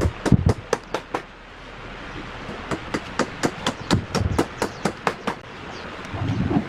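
Heavy wooden log sections set down on a wooden tabletop with dull thumps, three times, over a run of sharp, irregular clicks and taps, a few a second.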